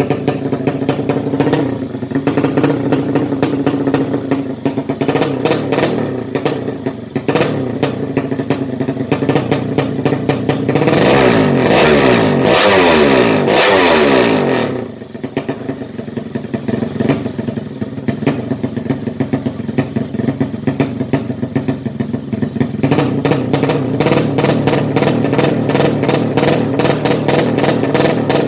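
A 200cc drag-racing motorcycle engine idling with a rapid firing beat, revved up and down several times in the middle, then settling back to idle, a little louder again near the end.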